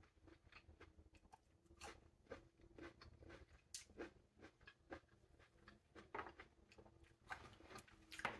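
A person biting and chewing a small, hard green plum close to the microphone: irregular short crunches and mouth clicks, with a louder bite near the end.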